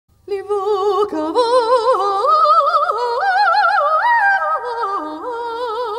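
A woman singing high, sustained notes with a wide vibrato. The pitch climbs to its highest about four seconds in, then drops back and holds.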